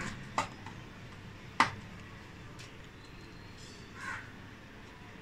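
Small screwdriver and screws clicking against the laptop's metal hinge and screen frame during screw fitting. There are two sharp clicks about a second apart, the second the loudest, then a fainter click and a soft knock near the end.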